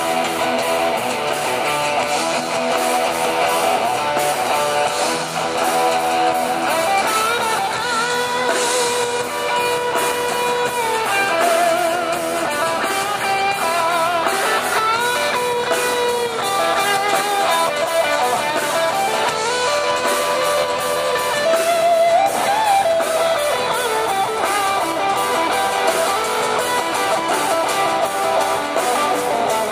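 Live rock band playing, electric guitars strummed, with a melody line that wavers and bends in pitch over the chords.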